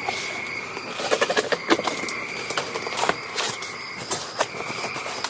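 Close rustling and crackling of gear being handled by someone settling in for the night, loudest in the middle, over steady insect chirring.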